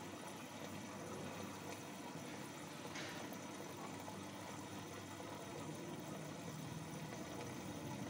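Aquarium pump running with a steady low hum, with one brief higher hiss about three seconds in.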